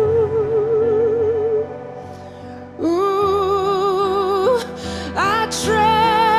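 A woman's voice sings a wordless melody in long held notes with wide vibrato, scooping up into each new note, over a sustained low instrumental accompaniment. It dips quieter for about a second midway.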